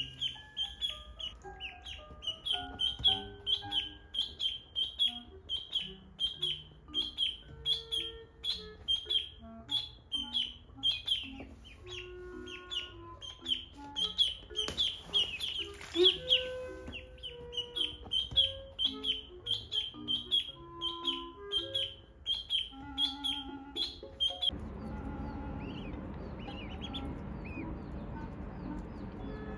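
Ducklings peeping: short high calls repeated about three times a second, over light background music. Near the end the peeping fades to a few faint calls over a steady hiss.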